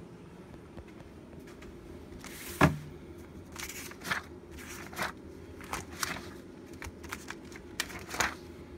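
Pages of a ring binder being flipped by hand: a run of short paper rustles and flaps, the loudest about two and a half seconds in, over a steady low background hum.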